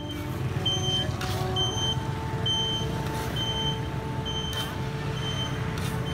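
Street traffic hum with a short high electronic beep repeating a little faster than once a second. A few brief scrapes come from a metal spatula stirring chestnuts through hot salt in an iron wok.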